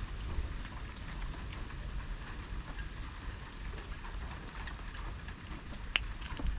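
Steady hiss of falling rain with scattered drop ticks over a low rumble, and one sharp click about six seconds in.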